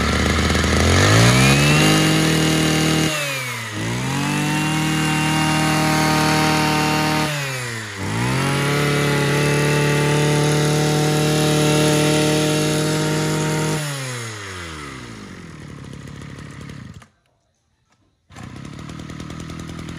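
Mitsubishi TL33 33cc two-stroke brush cutter engine idling, then revved up three times, each held at high speed for a few seconds before dropping back. It settles to a steady idle near the end, broken once by a gap of about a second.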